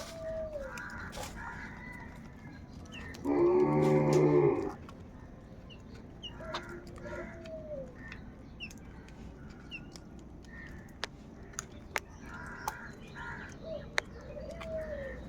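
Crows cawing in short pairs, with a low rising-and-falling call repeating every several seconds. About three seconds in comes a much louder, drawn-out call lasting about a second and a half, likely a rooster crowing.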